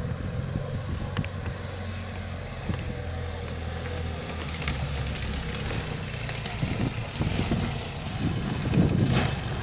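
Dual-sport motorcycle engine running as the bike rides down a rock trail toward the listener, getting louder as it nears and loudest near the end.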